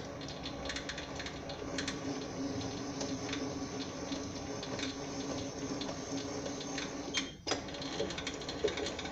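Sieg SC4 bench lathe running during thread cutting on a steel part: a steady motor and gear-train hum with light, irregular ticking. The sound drops out briefly about seven seconds in.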